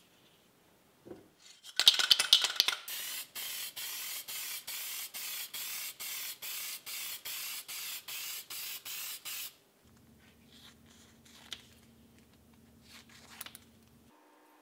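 Aerosol can of clear lacquer giving a brief loud rattle, then spraying in a quick, even series of short hissing bursts, about two or three a second, before stopping.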